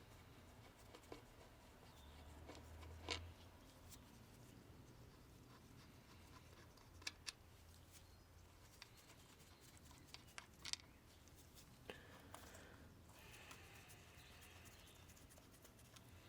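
Near silence with faint room tone and a few scattered light clicks and taps.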